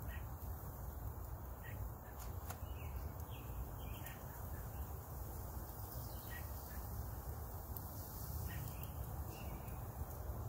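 Short, scattered bird chirps over a steady low rumble.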